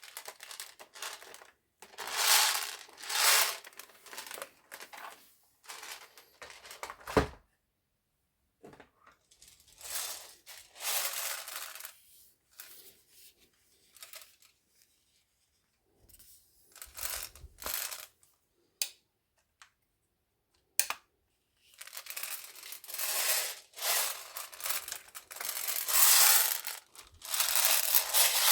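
Rustling and handling noises in irregular bursts with quiet gaps between them, and a sharp click about seven seconds in.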